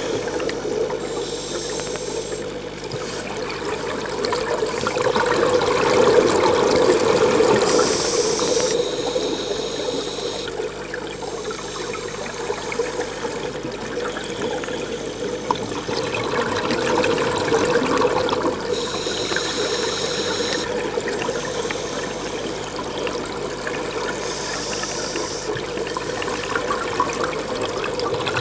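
Underwater bubbling and rushing from a scuba diver's breathing, swelling and fading, with short high hisses every few seconds.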